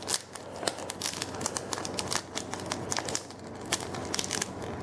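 Foil booster-pack wrapper crinkling and crackling in quick small clicks as it is worked open by hand.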